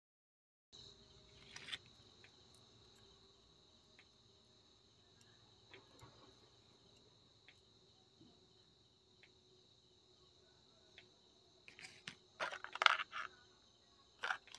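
Handling noise of small electronic modules and their wires: a few clusters of rustles and clicks near the end. Under it, a faint steady high-pitched background drone starts about a second in.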